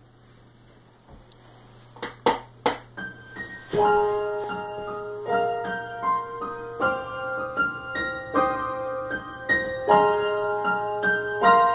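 Piano music played through Martin Gamma 310 speakers, one fitted with a new Sica tweeter, driven by a Yamaha RX-V775 receiver and picked up on a poor-quality microphone. A few sharp strikes come about two seconds in, and sustained piano notes begin about four seconds in, over a low steady hum.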